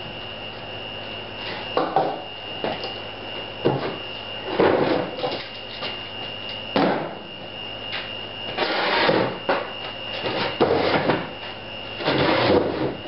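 Workshop handling noise: irregular wooden knocks and clunks, with a few longer scraping, rustling stretches as lumber and tools are shifted about.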